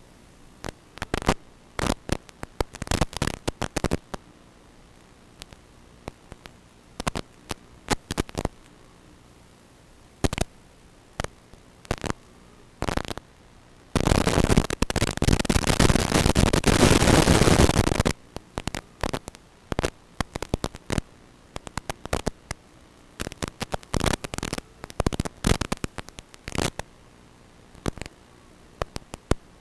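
Radio static from the analog 5.8 GHz video link of a Tinyhawk FPV micro quad, as recorded by the goggles: irregular crackling bursts of hiss, with a solid stretch of loud static lasting about four seconds midway, typical of the video signal breaking up.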